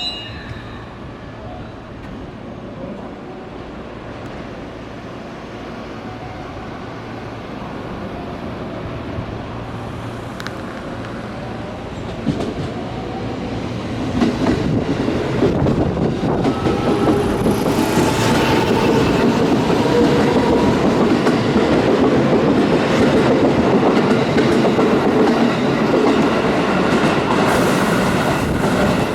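Electric commuter train approaching and running along the station platform, wheels clattering over the rail joints. It grows slowly louder, then is loud from about halfway, with a faint motor whine rising in pitch.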